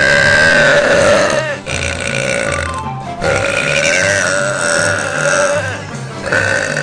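A woman belching: long, loud, drawn-out belches, the first two each held for about two seconds and a third starting near the end, over background music with a steady beat.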